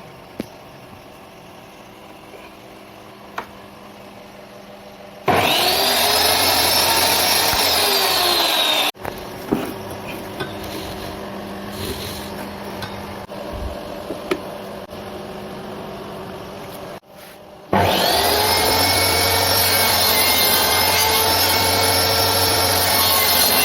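Circular saw mounted as a table saw, switched on and cutting wood: a loud motor whine comes in suddenly and its pitch sags under load. It stops abruptly, a few knocks follow, and then the saw runs and cuts again steadily.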